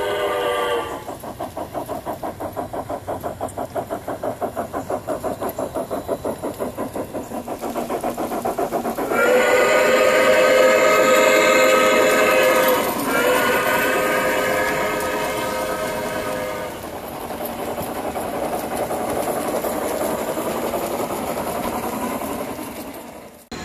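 Sound system of a model New York Central Hudson steam locomotive: a steam whistle ending just under a second in, then steam chuffing at about four puffs a second, then two long whistle blasts about nine and thirteen seconds in, after which the engine runs on more steadily.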